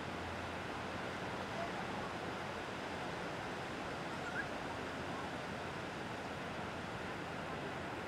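Ocean surf washing onto a beach: a steady, even rush of waves with no distinct breaks.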